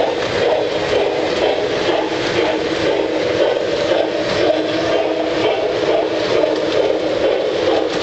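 Lionel O-gauge model train running on the layout: a steady rumble of the locomotive's motor and metal wheels rolling on the track, with faint quick ticks over it.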